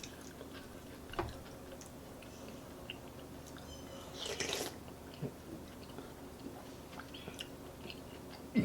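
A person chewing a mouthful of chicken noodle soup, with soft wet mouth clicks and one brief breathy noise, like a slurp or a drawn breath, about four seconds in.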